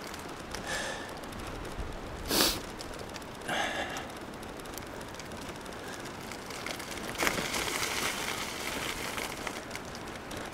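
Steady hiss of a bicycle rolling along a wet road, with the rider's breathing: a few short, hard exhales, the loudest about two and a half seconds in.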